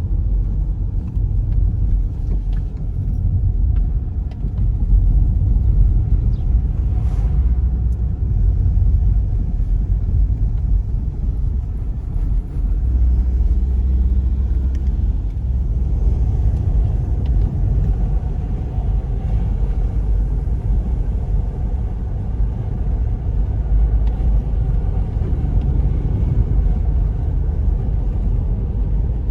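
Mitsubishi Galant VR4 being driven: its turbocharged inline-four runs under way beneath a heavy, steady low rumble of road and wind noise, the engine note drifting up and down a little with speed.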